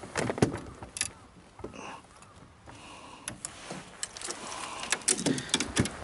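Fishing rods and tackle being handled in a small boat: scattered clicks, knocks and clatter of rods and reels against the hull, with heavier thumps about half a second in and again near the end.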